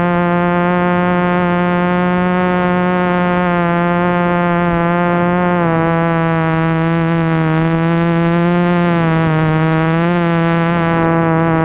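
A multirotor drone's motors and propellers buzzing steadily in flight, heard close from the camera it carries. The pitch dips a little about halfway through and wavers a few times near the end.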